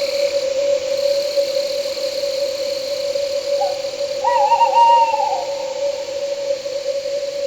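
An owl hooting: one wavering call of about a second, about four seconds in, with a short note just before it. Under it run a steady low hum and a high buzz of night insects that stops about three seconds in.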